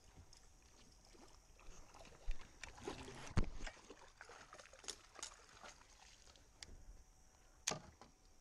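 Scattered knocks and clunks of hands and gear against a bass boat as the anglers work a hooked fish, the loudest about three and a half seconds in and another near the end.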